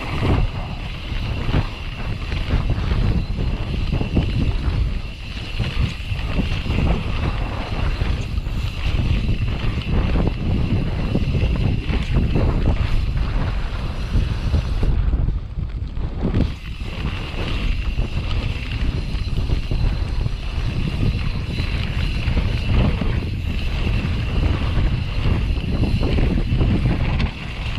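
Mountain bike riding down a dirt trail: tyres and frame rumbling and rattling over the ground, with many small knocks from bumps, under heavy wind noise on the microphone.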